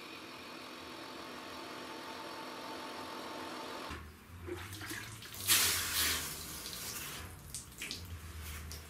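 A handheld gas torch hisses steadily against the steel nose panel, heating a spot to shrink the stretched metal, and goes quiet about four seconds in. Water sounds follow as a rag is dipped in a bucket and pressed onto the hot spot to quench it, loudest about five and a half seconds in.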